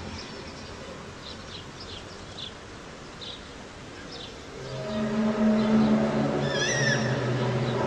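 Faint short high chirps over a hiss, then about four and a half seconds in a loud low drone of a few steady tones begins, of the kind circulated as the mysterious 'strange sounds' heard in the sky. A short bending high call cuts through the drone near the end.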